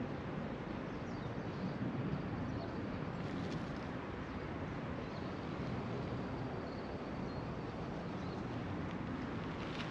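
Steady outdoor background noise with no distinct events.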